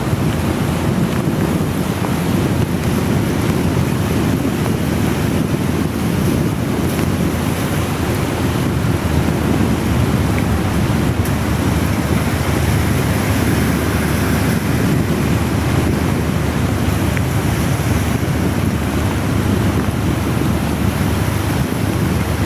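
Steady rushing noise of wind buffeting the microphone on a moving motorcycle, mixed with the hiss of very heavy rain.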